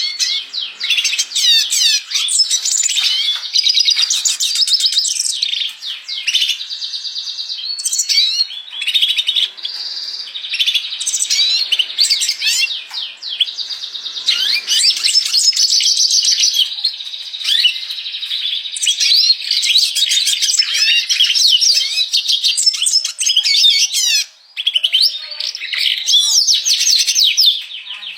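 Red siskin in full song: a long, fast twittering run of chirps, trills and quick pitch sweeps, with one brief pause about 24 seconds in.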